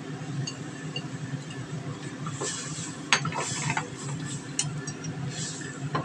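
Wooden chopsticks stirring flat rice noodles in a pot of boiling water, with several sharp clicks as they knock against the pot. A steady low hum and short hisses run underneath.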